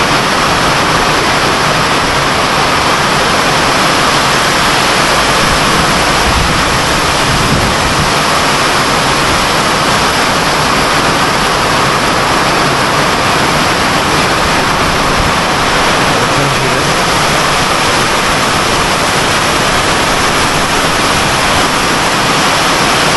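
Heavy tropical rain pouring down, a loud, steady hiss.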